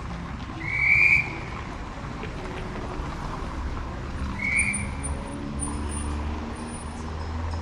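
Street traffic running steadily, with a bird giving two short, loud calls, about a second in and again about four and a half seconds in.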